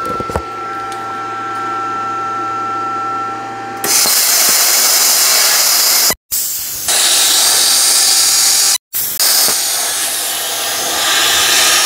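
YesWelder handheld plasma cutter cutting a slot freehand through a steel L bracket. A steady hum with a thin whine runs for about four seconds, then the cutting arc starts with a loud hiss that breaks off twice for a moment before carrying on.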